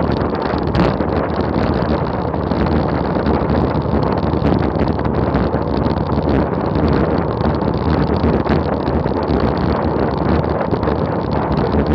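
Steady, loud wind rush buffeting an action camera's microphone on a road bicycle descending at about 38 mph.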